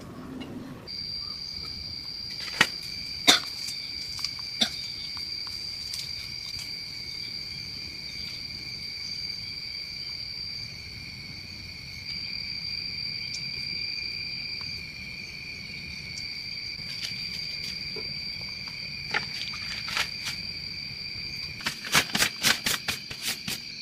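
Steady, high-pitched insect trilling that starts about a second in and holds one pitch, with scattered sharp clicks and a quick run of clicks near the end.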